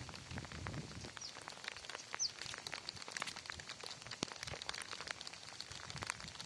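Rain falling, heard as dense, irregular drops ticking on a surface. Two short high chirps sound about one and two seconds in.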